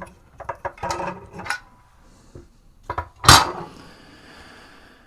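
Clicks and clinks of a guitar pedal's metal enclosure and parts being handled during disassembly, with one loud clack a little after three seconds in.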